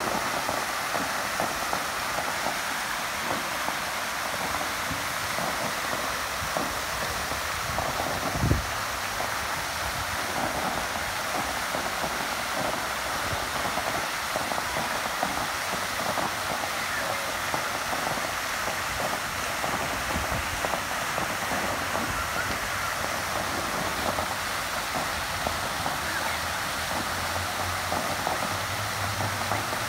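Park fountain splashing steadily into its pond, a tall central jet and several small bubbler jets making a constant rushing hiss of falling water. A single low thump about eight and a half seconds in, and a faint low hum near the end.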